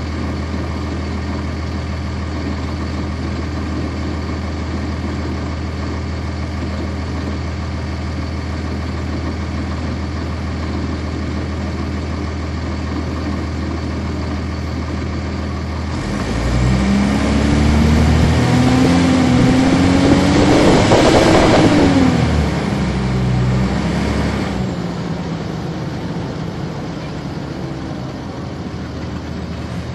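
A 1999 NovaBus RTS transit bus's Cummins ISC inline-six turbodiesel, heard from on board, idling steadily, then revving up as the bus pulls away about 16 s in. The engine pitch climbs for about five seconds, drops sharply, holds briefly, and eases off about 25 s in, leaving quieter running.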